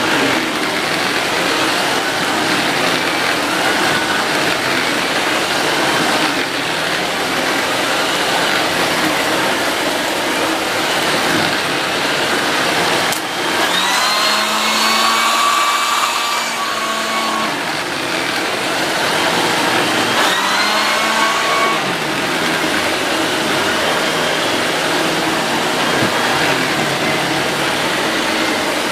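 Electrolux UltraFlex Green canister vacuum cleaner running steadily with an air-driven turbo brush nozzle, a dense rushing of motor and airflow. Twice a whining tone rises and then holds for a few seconds, once about halfway through and again about two-thirds through.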